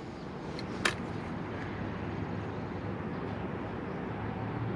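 Steady low hum of a vehicle engine running, with one sharp click about a second in.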